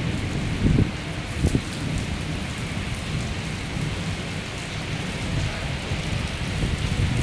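Steady rain falling on a flat rooftop covered in standing water, a continuous hiss, with a few low thumps in the first second and a half.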